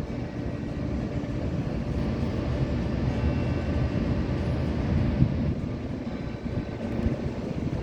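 San Fernando Cathedral's church bells ringing faintly for eight o'clock, their tones coming through from about three seconds in. Underneath is a steady low rumble of city noise.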